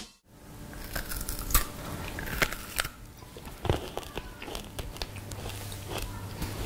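Biting and chewing of chocolate snacks made with mealworms and sprinkles: scattered crisp crunches and small clicks of mouth sounds.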